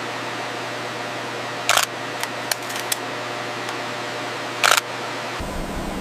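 Steady mechanical hum and hiss broken by two short bursts of sharp clicks and a few single clicks; near the end it cuts abruptly to a low rumble like wind or surf.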